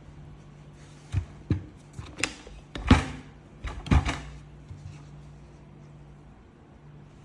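A handful of knocks and clunks, about six in quick succession between one and four seconds in, over a steady low hum.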